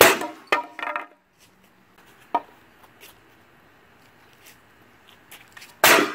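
A 2x4 board thrown end-first into a corrugated aluminum storm panel: a loud bang with about a second of clattering, ringing metal, a single knock a little after two seconds in, then a second loud bang with clatter just before the end as the board strikes the panel again.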